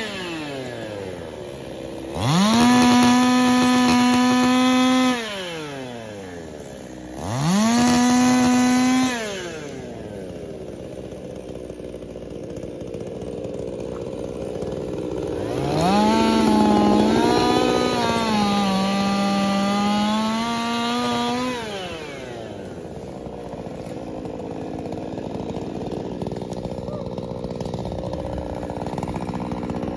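Ported two-stroke chainsaw idling, revved to full throttle three times: a blip of about three seconds, a shorter one of about two seconds, then a longer run of about six seconds whose pitch sags and recovers before it drops back to idle.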